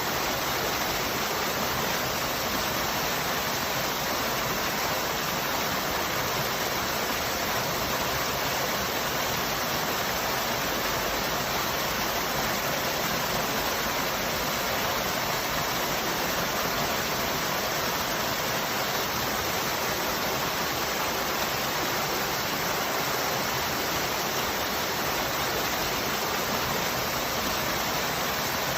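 Waterfall: falling water making a steady, even rushing noise that does not change.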